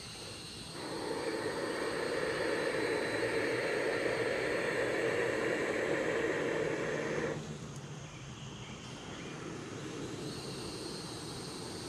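Aerosol can of expanding spray-foam insulation hissing as it is sprayed through a straw into holes in a broadhead archery target. A steady spray that starts about a second in and cuts off suddenly about seven seconds in.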